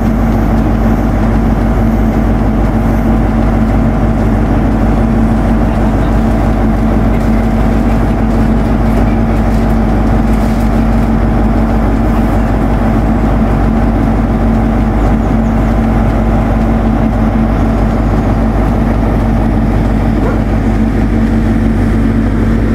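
Class 43 InterCity 125 diesel power car idling at a standstill: a loud, steady engine drone with a constant low hum.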